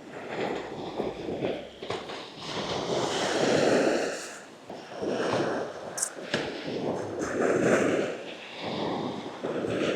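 Wind and surf at the seashore, rising and falling in uneven swells every second or two, with a few short clicks.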